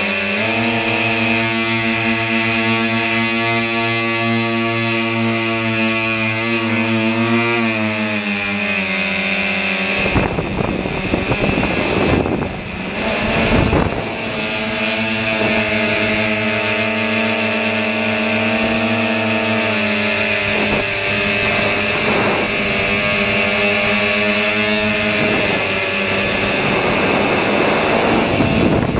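Electric motors and propellers of a small radio-controlled aircraft carrying the camera in flight: a steady whine whose pitch rises and falls with the throttle. From about ten to fourteen seconds in it breaks into a rush of wind noise, then comes back.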